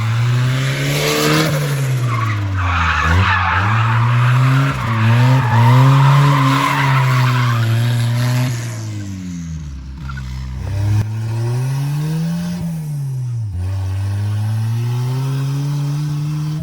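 Turbocharged GM 2.0 four-cylinder engine of a BMW E36 drift car revving up and down again and again while drifting. Tyres squeal and skid through the first half; in the second half the engine revs rise and fall on their own.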